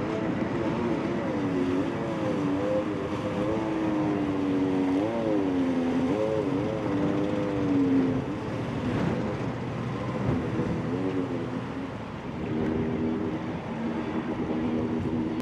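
Two-stroke stand-up jet ski engine running, its pitch rising and falling with the throttle for the first eight seconds or so. It fades for a few seconds, then runs steadily again near the end.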